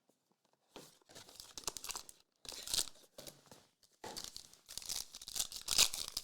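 A trading card pack wrapper being torn open, crinkling and tearing in several rips. It starts about a second in and is loudest near the end.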